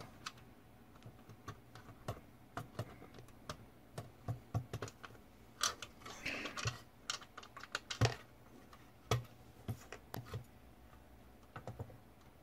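Scattered light clicks and taps, irregular and a few a second, of screws and a screwdriver being handled while the range's control panel is screwed back in place, with a short scraping rasp about six seconds in.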